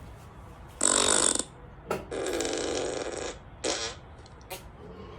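Fart sound effects played through a phone speaker: three farts, a short one about a second in, a longer one lasting about a second starting near two seconds, and a short one near four seconds.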